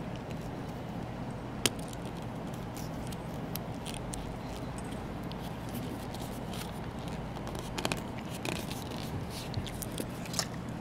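Leather lace being handled and wrapped around a PVC pipe bow's handle: faint scrapes and a few sharp clicks over a steady low hum.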